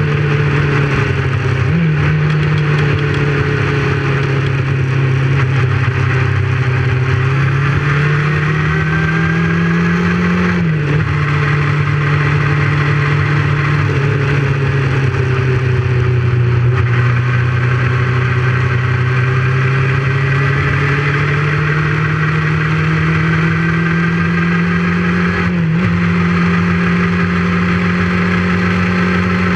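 Motorcycle engine heard from on board the bike, pulling steadily with the pitch slowly rising and then dropping sharply at gear changes about two, eleven and twenty-six seconds in, over a steady rush of wind and road noise.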